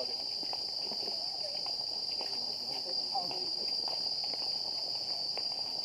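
Steady, unbroken high-pitched buzz of an insect chorus, with faint voices underneath.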